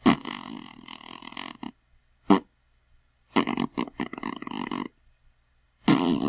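Fart sound effects played one after another with silence between: a long one, a short pop about two seconds in, another long one, and a fourth starting near the end.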